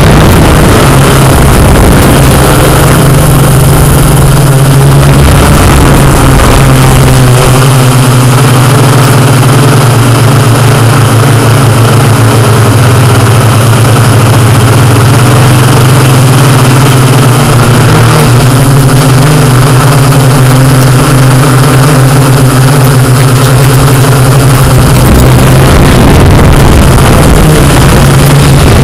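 Quadcopter drone's motors and propellers buzzing loudly and steadily on its own microphone, a constant low hum with a slight wavering in pitch.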